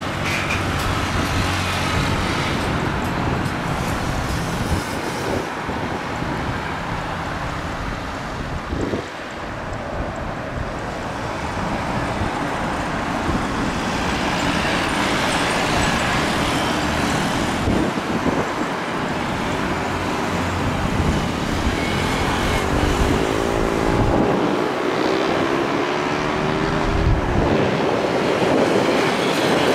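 Jet engines of an Airbus A320 airliner running at low taxi power: a steady rumble and hiss. A low droning tone joins in over the last several seconds as the aircraft turns toward the listener.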